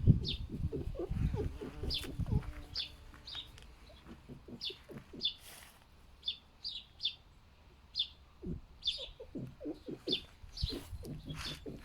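Pet foxes grunting like a pig: runs of short, low grunts in quick succession at the start and again near the end. Small birds chirp high and briefly throughout.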